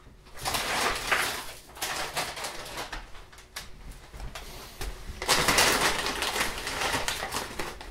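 Crinkling rustle of a plastic bag of corn chips being handled, faint in the first couple of seconds and much louder and denser from about five seconds in.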